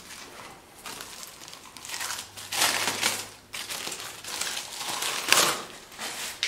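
Plastic wrapping crinkling and rustling in irregular bursts as a rear suspension lift block is pulled from its box and unwrapped, loudest a little past five seconds in.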